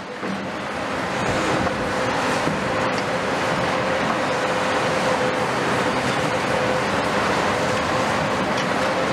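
Large hydraulic excavators' diesel engines and hydraulics running steadily, a constant machine noise with a steady whine held over it.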